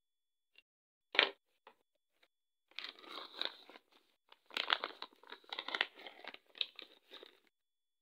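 Clear plastic bath-bomb pouch crinkling and rustling as it is handled, in a run of small crackles, after one sharp tap about a second in.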